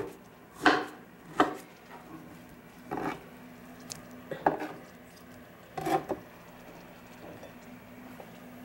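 Kitchen knife cutting guava on a plastic cutting board: about six sharp, irregular knocks of the blade hitting the board, the loudest in the first second and a half.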